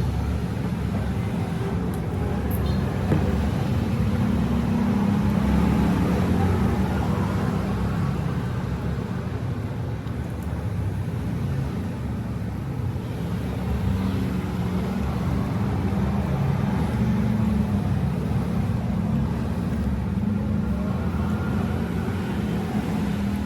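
Steady low rumble of road traffic that swells and fades slowly as vehicles pass, with a couple of faint clicks a few seconds in.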